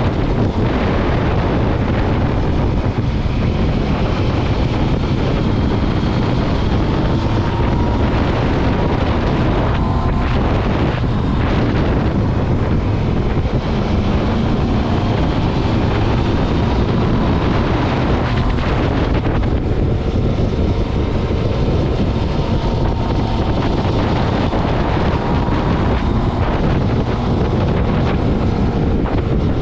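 Motorcycle ridden at speed: heavy wind rushing over the microphone over the engine, whose faint pitch rises and falls slowly with the revs.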